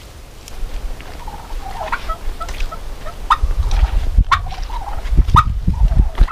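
Turkey calling: a run of short, sharp calls about one a second, with softer calls between them. A low rumble runs underneath from about three and a half seconds in.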